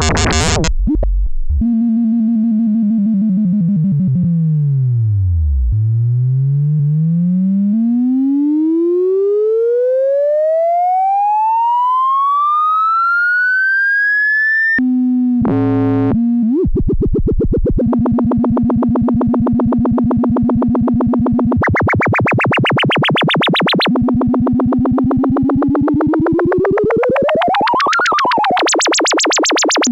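Eurorack modular synthesizer voice, modulated by the CV Peaks module. A low steady tone dips down, then glides steadily up to a high whistle and cuts off suddenly about halfway through. A rapid pulsing buzz follows on a steady low note, with a pitch that swoops up and falls back near the end.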